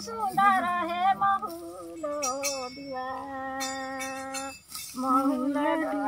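Background music: a melody of held, wavering notes, with brief runs of quick high rattling about two and four seconds in.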